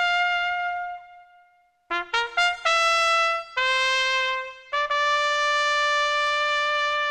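Solo trumpet playing a melody: a held note that fades away, a short pause, then a quick run of short notes leading into longer held notes, the last one held to the end.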